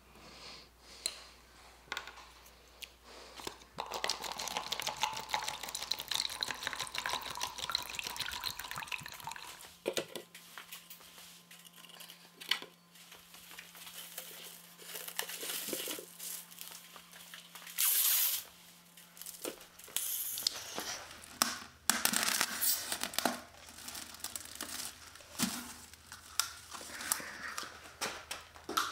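Plastic cling film crinkling and tearing as it is slit with a utility knife and pulled back from the top of a bucket, in repeated loud bursts through the second half. Before that come quieter handling and liquid sounds from the bucket.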